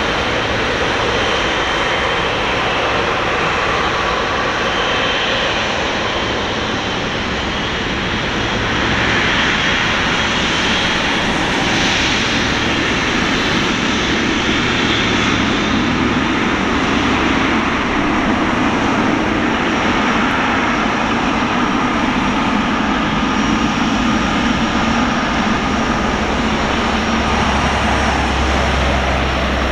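Boeing 777-200LR's GE90 turbofan engines running at low taxi power as the airliner rolls by: a steady jet rumble and rush with thin, high whining tones over it, swelling a little about a third of the way in.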